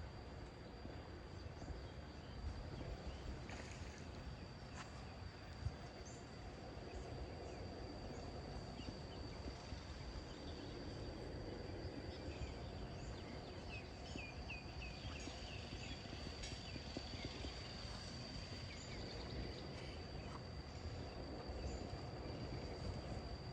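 Lakeside outdoor ambience: a low rumble of distant road traffic under a steady high whine, with a quick run of bird chirps about two-thirds of the way through and a sharp click about six seconds in.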